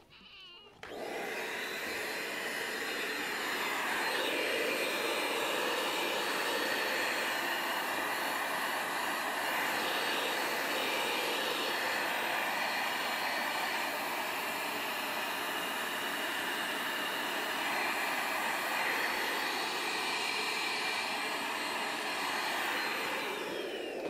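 Handheld vacuum cleaner switched on about a second in and running steadily with a whine. Near the end it is switched off and its pitch falls as the motor winds down.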